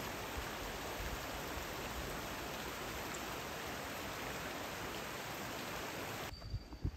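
Steady, even rush of water, like a rocky river flowing or rain falling. It cuts off abruptly a little past six seconds, leaving a quieter background with a few soft low knocks.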